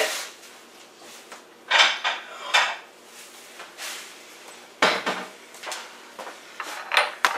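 Metal utensils clinking and scraping against dishes in a few short bursts, with a sharp clink about five seconds in and another near the end.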